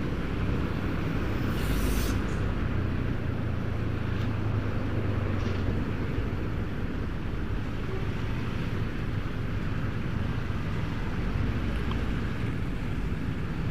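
Motorcycle ridden at light throttle in heavy road traffic, heard from the rider's own camera: a steady low engine drone mixed with road and wind noise. A brief hiss comes about two seconds in.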